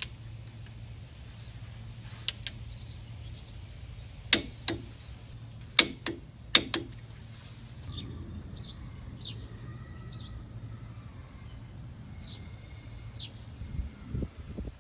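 Torque wrench clicking as the brake caliper bolts reach their set torque: about six sharp, separate clicks over a few seconds, some in close pairs. Birds chirp in the background afterwards.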